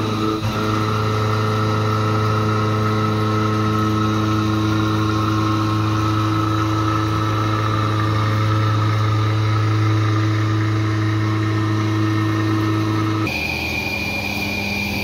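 CNC vertical milling machine cutting 6061 aluminium under flood coolant: the spindle and end mill give a loud, steady whine. About 13 seconds in, the sound switches abruptly to a quieter, higher-pitched steady whine as a larger cutter works the part.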